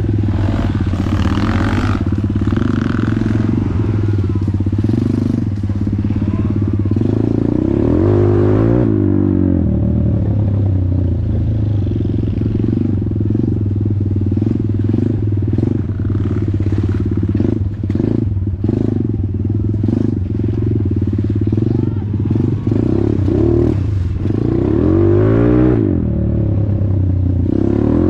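Off-road motorcycle engine running under way. The revs climb and drop about eight seconds in and again near the end, with rattling knocks in between.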